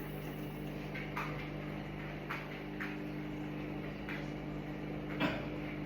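Coffee machine running its start-up cycle: a steady electrical hum with soft clicks every second or so and one sharper click about five seconds in.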